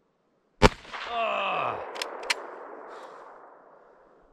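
A single shot from an m/39 Mauser bolt-action rifle. It is followed by a long groan that falls in pitch, and two sharp clicks about a third of a second apart.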